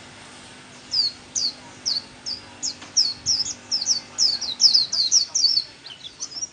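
White-eye (vành khuyên) singing its 'líu' song: short, high notes slurred downward, starting about a second in, speeding up into a fast twittering run and thinning out near the end.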